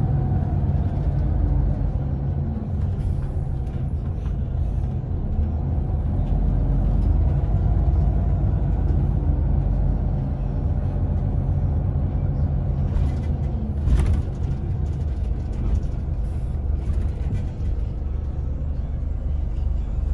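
Scania Irizar Intercentury coach heard from inside the cabin while driving: a steady low engine and road rumble, with one brief sharp sound about fourteen seconds in.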